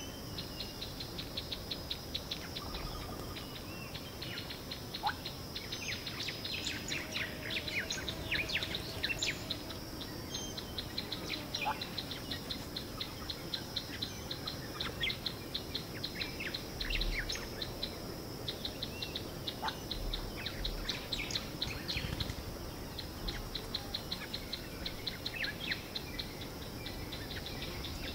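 Natural bush ambience: a steady high insect drone with rapid, even ticking, overlaid by scattered short high chirping calls that come in clusters.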